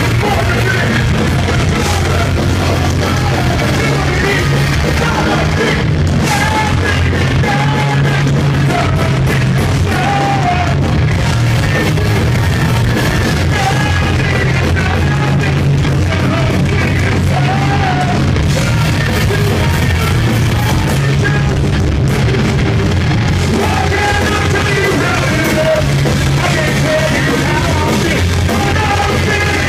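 Punk band playing live, with loud electric guitars, bass and drums under shouted singing.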